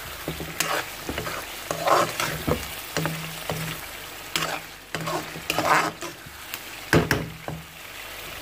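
Chicken pieces frying in oily tomato masala in a metal karahi, sizzling steadily while a spatula stirs and scrapes the pan about once a second, some strokes knocking against the metal. A low steady hum runs underneath. This is the bhuna stage, with the oil separated out of the masala.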